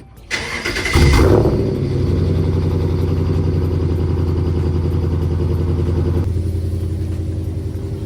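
Vehicle engine cold-started to warm it up. The starter cranks briefly, the engine catches with a quick rev about a second in, then settles into a steady idle.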